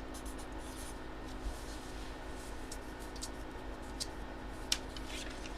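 Steady low hum with a few faint, sharp clicks, the loudest near the end.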